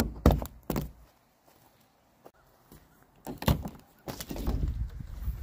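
Rear hatch of a truck camper shell being unlatched and opened: several sharp clicks and thunks in bursts, three in the first second and two more about three and a half seconds in, followed by a low rumble near the end.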